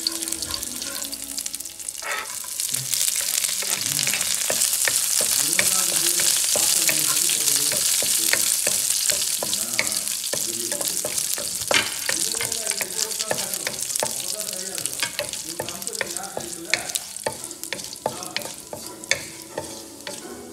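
Curry leaves and dried red chillies sizzling in hot oil in a nonstick wok, stirred with a wooden spoon that clicks and scrapes against the pan. The sizzle swells about two seconds in and slowly eases off toward the end.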